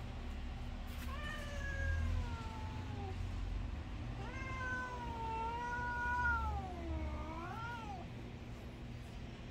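Domestic cat yowling twice in protest at being told to go inside: a drawn-out cry that falls in pitch over about two seconds, then a longer wavering one of about four seconds that swings up and down at its end.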